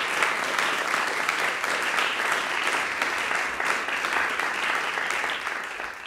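Audience applauding steadily in a recital hall, fading out near the end.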